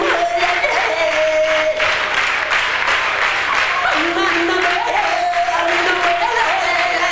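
A man singing a mock Middle Eastern pop melody into a microphone, in wavering, ornamented notes without real words, while the audience claps along to a steady beat.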